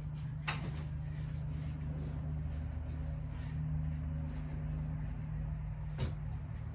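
Steady low hum from a running motor or appliance, with two sharp clicks, about half a second in and near the end, from hand work on the seat.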